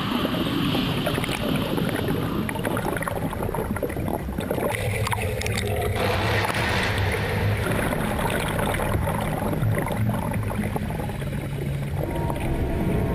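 Water bubbling and churning around a car submerged underwater, heard from under the water inside its flooded cabin.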